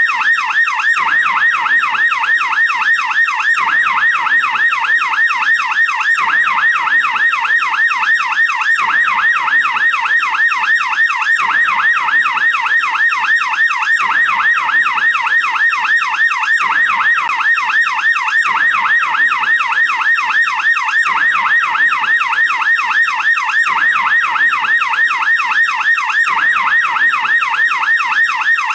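American police car siren on its yelp tone: a fast, continuous up-and-down wail, rising and falling several times a second.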